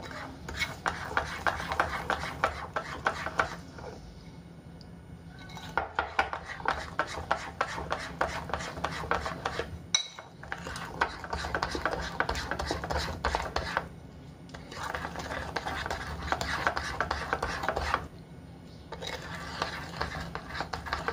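Spoon stirring and scraping around a ceramic bowl of sugary char siu marinade, mixing to dissolve the sugar. The stirring comes in about five spells of three to four seconds with short pauses between.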